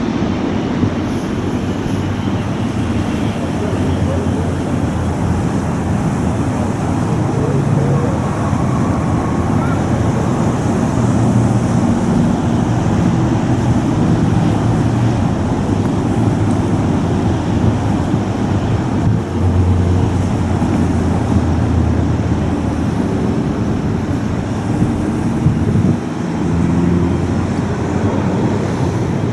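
Steady, loud low rumble of jet aircraft engines mixed with road traffic.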